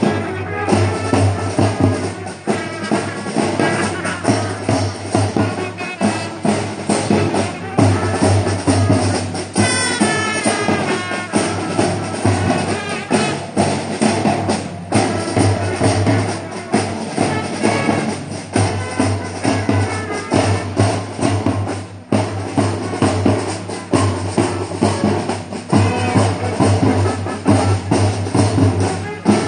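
A school marching band playing brass instruments and drums together, with a steady, regular drum beat.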